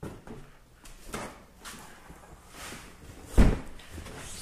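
Handling noises: knocks and rustles of a boxed muffler being carried and moved about, with one heavy thump about three and a half seconds in.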